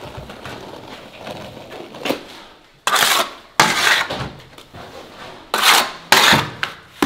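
A plasterer's smoothing float scraping over fresh, wet interior plaster: light rubbing at first, then four loud scraping strokes of about half a second each, starting about three seconds in.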